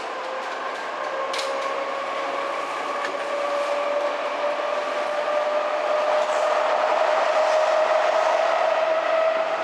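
Hamburg Hochbahn DT3-E U-Bahn train heard from inside the car while underway: running noise with the electric traction drive's whine slowly rising in pitch and growing louder as the train picks up speed. There is a sharp click about one and a half seconds in, and the whine stops near the end.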